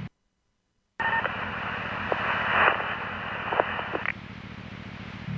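Police radio scanner channel opening with no voice: a brief tone, then about three seconds of radio hiss with a steady whine running through it, dropping to a low hum before it cuts off suddenly.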